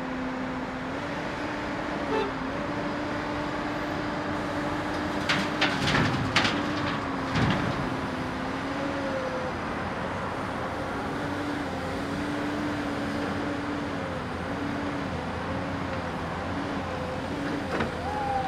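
Komatsu PC240LC excavator's diesel engine running under work, its pitch stepping up and down, with a run of sharp knocks about five to seven and a half seconds in.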